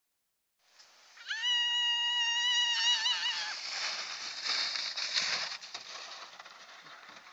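A person's high-pitched, sustained vocal cry held for about two seconds, wavering just before it stops, followed by a few seconds of rushing noise that gradually fades.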